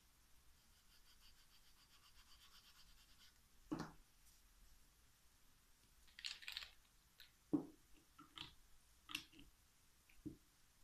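Faint rasp of a nail file drawn over a fingernail in quick, even strokes, stopping about three seconds in. After that come a knock and a run of short clicks and taps as a small sealer bottle is picked up and its cap handled, the sharpest click about halfway through.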